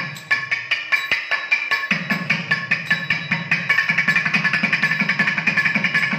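Thavil, the South Indian barrel drum, played in a fast solo rhythm of sharp, ringing strokes. Deep bass strokes join about two seconds in, and the strokes speed up into an even, rapid run near the end.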